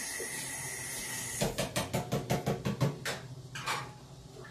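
A steady hiss that cuts off about a second and a half in, followed by a quick run of sharp clicks and knocks, a couple more coming later: kitchen handling noise during cooking.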